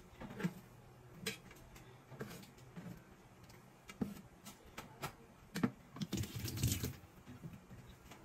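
Light clicks and knocks of kitchen utensils handled on a plastic cutting board, spaced about a second apart, with a denser clatter and rustle around six to seven seconds in.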